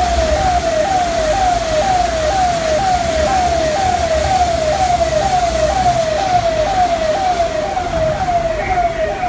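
Emergency-vehicle siren repeating a quick falling wail, a little over two a second, steady throughout, over a low rumble.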